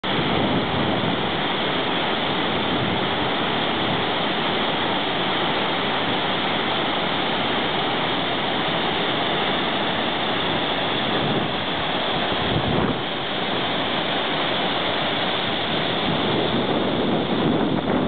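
Selfoss waterfall and the glacial river Jökulsá á Fjöllum churning below it: a steady, loud rush of falling and turbulent water.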